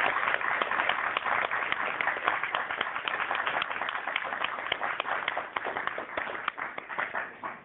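Audience applauding, a dense patter of many hands clapping that thins out and fades toward the end.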